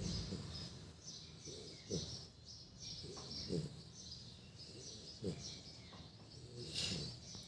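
Snoring: short snores that fall in pitch, about one every one and a half to two seconds.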